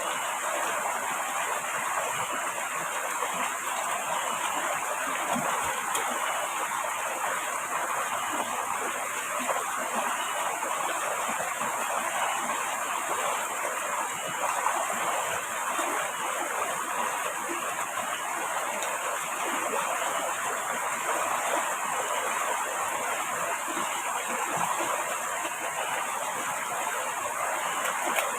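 River water rushing steadily, an even, unbroken wash of water noise.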